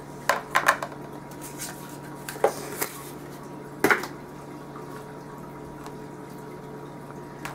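Glass food storage containers and their plastic snap-lock lids clinking and knocking together as they are handled and set down, about six sharp clinks in the first four seconds, the loudest near four seconds in.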